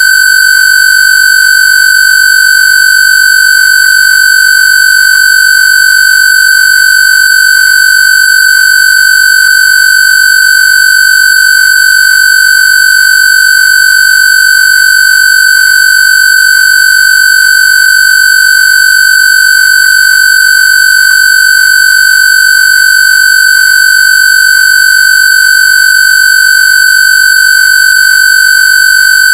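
Electronically generated square-wave tone, played as a Rife/AWG 'frequency' for shingles. It is a single loud, high, buzzy tone that holds perfectly steady, with no change in pitch or level.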